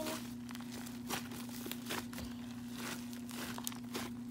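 Fluffy shaving-cream slime being squished and kneaded by hand, giving irregular crackly clicks and pops. A steady low hum runs underneath.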